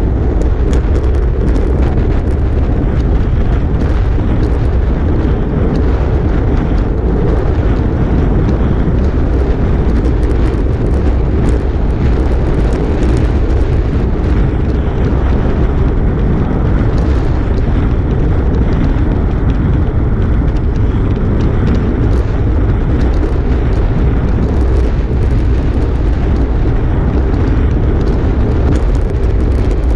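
Wind buffeting a handlebar-mounted GoPro microphone on a road bike moving at about 25 to 28 mph: a steady, heavy low rumble.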